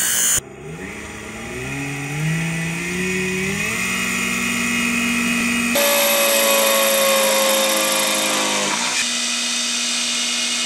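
Small 775 DC motor drill press running at a steady whine, after a brief burst of grinding that cuts off about half a second in. The motor's pitch climbs in steps as it spins up and then holds. Near the middle it is drilling a wooden block, its higher whine sagging slightly under the load of the bit.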